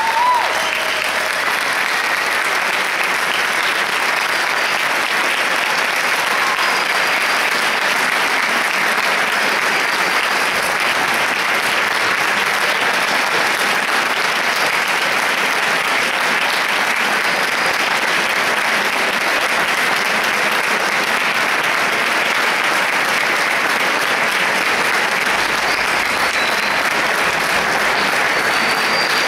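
Audience applauding steadily and evenly throughout, after a wind band and choir finish a piece; the band's last held note fades away just at the start.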